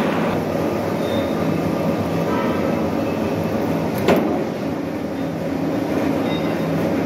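Metal lathe running, with a steady mechanical drone from the spinning chuck and drive. One sharp click stands out about four seconds in.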